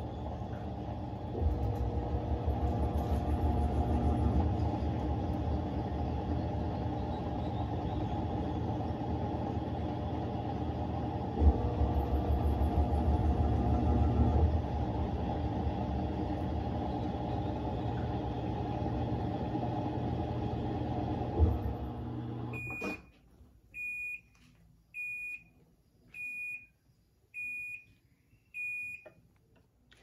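Panasonic NA-F140B6 washing machine running steadily at the end of its cycle, its motor hum stopping abruptly about three-quarters of the way in. It then gives about six short high beeps, roughly one a second: the end-of-cycle signal.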